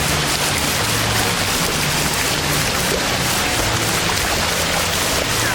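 Steady rush of water splashing from a children's water-play fountain, like heavy rain, with background music underneath.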